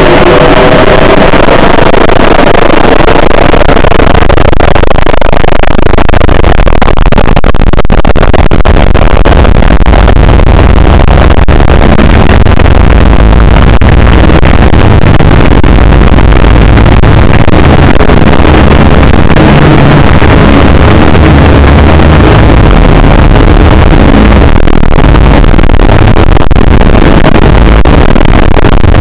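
Very loud, heavily clipped and distorted noise with a deep, shifting bass rumble; a held pitched tone fades out in the first second.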